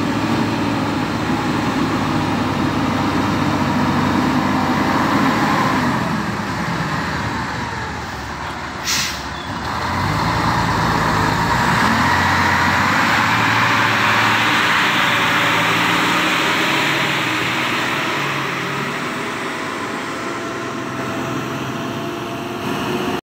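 Heavily loaded multi-axle log truck's diesel engine pulling steadily up a dirt incline under about 40 tons of logs, getting louder as it comes close about halfway through. A short hiss about nine seconds in.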